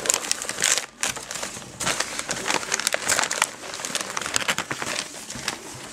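Newspaper and gift-wrap paper crinkling and rustling in irregular crackles as a small child's hands paw through a wrapped present.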